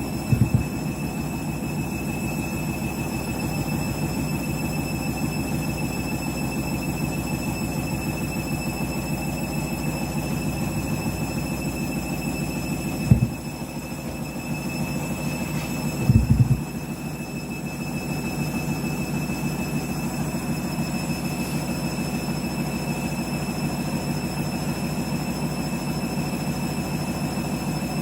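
Candy washing machine's drum turning on an intermediate spin with an overloaded, unbalanced load: a steady motor whir, broken by loud knocks of the drum banging in its housing, once at the start, once about halfway, and a quick cluster a few seconds later.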